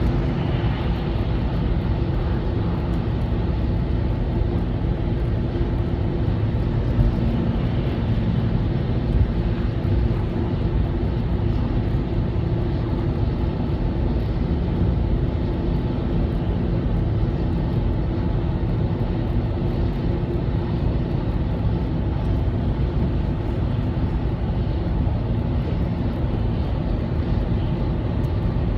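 Albach 2000 woodchipper travelling at highway speed, about 80 km/h: a steady low drone of engine, road and wind noise. Two brief knocks about 7 and 9 seconds in.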